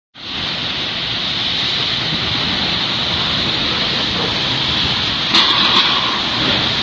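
Heavy rain driven by strong wind gusts, a dense, steady hiss. A brief louder rush with a few sharp clicks comes a little past five seconds in.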